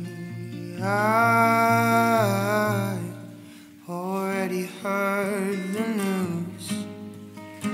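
Acoustic song: a man sings long held notes over a ringing acoustic guitar. The voice holds one note for about two seconds, drops out just before the middle, then comes back with a wavering note.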